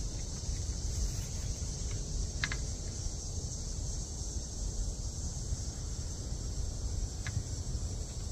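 A steady high-pitched insect chorus, with a steady low rumble beneath it and a couple of faint ticks.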